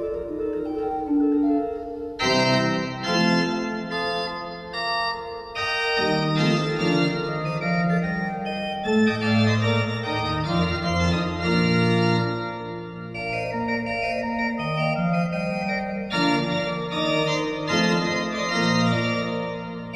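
Organ playing slow, sustained chords that change every second or two, as offertory music while the gifts are prepared at the altar.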